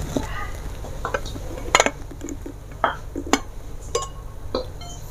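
Enamel mug and its metal lid clinking as they are handled, about six sharp clinks with short ringing, the loudest nearly two seconds in. A steady low hum sits underneath.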